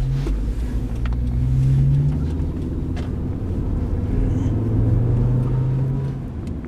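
Chevrolet Spark engine and road noise heard from inside the cabin while driving, a steady low drone whose note rises twice as the car accelerates, dropping back in between and again near the end.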